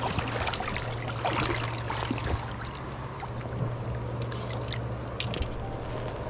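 Shallow river water running over cobbles, with a hooked sea-run cutthroat trout splashing and thrashing at the surface in short bursts as it is played in. A steady low hum runs underneath.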